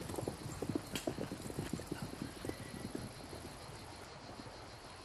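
Horses' hooves clopping, several irregular steps a second, growing fainter after about three seconds.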